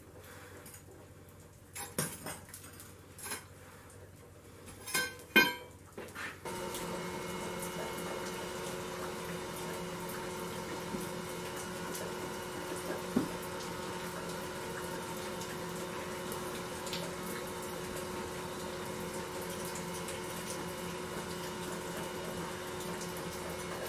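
Sharp metal clinks and knocks from the crucible and its pouring shank while molten aluminum bronze is poured into a green sand mould. These are followed, after an abrupt change, by a steady hum with several held tones and a single knock midway.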